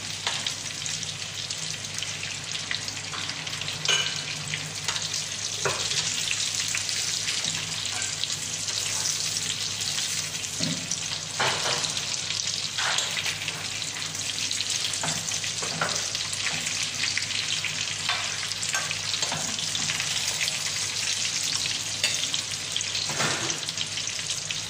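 Salmon pieces sizzling steadily in hot oil in a frying pan, with a few scrapes and taps of a spatula against the pan as the pieces are turned.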